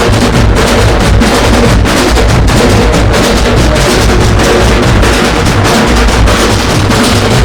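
Loud music driven by heavy, continuous drumming.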